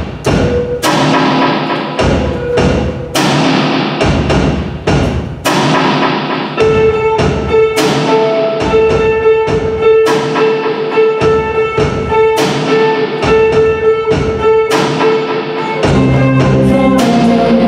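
Live band playing the opening of a song: drum hits at an even pace, a held note entering about six seconds in, and more instruments filling in near the end.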